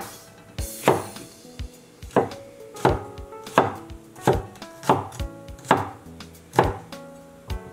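Chinese-style cleaver chopping a yellow bell pepper into small squares on a wooden cutting board: sharp knocks of the blade striking the board at a steady pace of about one every two-thirds of a second.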